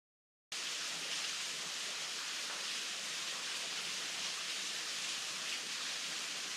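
Water falling over a small waterfall at low flow: a steady, even hiss that begins abruptly about half a second in.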